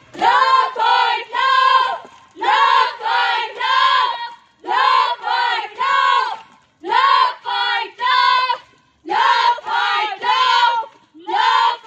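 A group of young women's voices chanting in unison while marching: short phrases of about three held, sung-out syllables, repeated roughly every two seconds with brief pauses between them.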